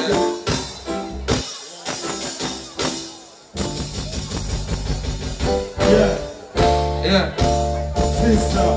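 Band music with a steady beat; a heavy bass line and fuller band come in suddenly about three and a half seconds in.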